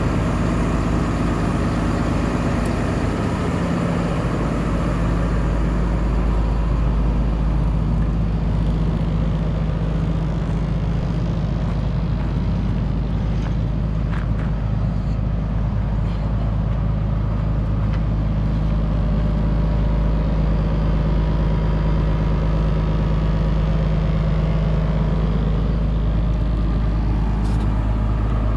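The 6.7-litre turbo-diesel engine of a 2018 International 4300 box truck idling steadily, a low even drone that holds the same pitch throughout.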